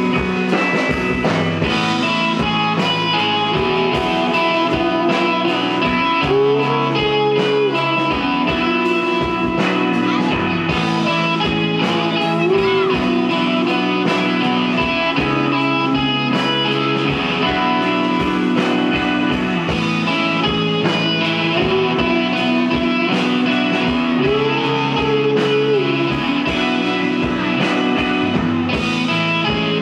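Live rock band playing an instrumental passage: electric guitar with bending notes over a repeating bass line and steady drums.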